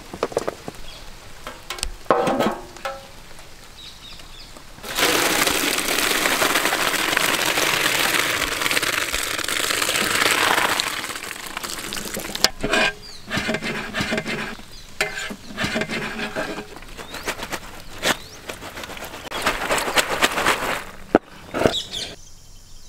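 Hot water pouring and splashing out of a large metal cooking pot as boiled macaroni is drained, a steady rush lasting about six seconds, followed by scattered knocks and clatters.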